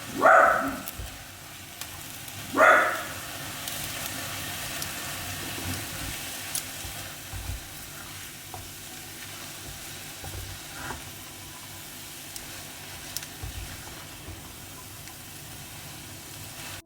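A dog barks twice in the first three seconds. Then food sizzles steadily in a frying pan, with a few faint clicks of a utensil.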